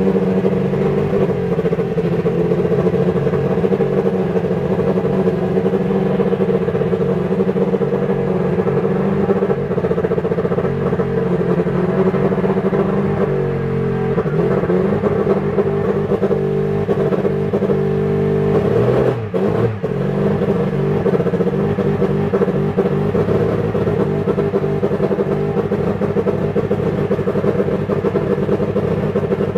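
Toleman TG184 Formula One car's Hart 1.5-litre turbocharged four-cylinder engine running at a steady fast idle. The revs waver briefly about halfway through, then dip and pick up again about two-thirds of the way in.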